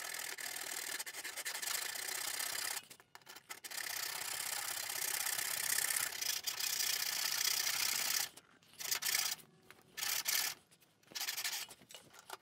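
Hand backsaw cutting into a board along a knife line for the shoulder of a rabbet: a steady rasping from long saw strokes, with a short break about three seconds in, turning choppy with gaps from about eight seconds.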